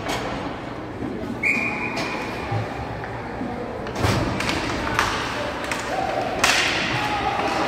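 Sharp knocks and bangs of an ice hockey game echoing in an arena, with pucks, sticks and players hitting the boards; the loudest bang comes about six and a half seconds in. A short, high, steady tone like a whistle sounds about one and a half seconds in.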